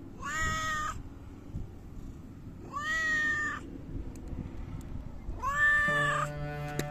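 A tabby cat meowing three times, each meow under a second long and about two and a half seconds apart. Slow background music starts near the end.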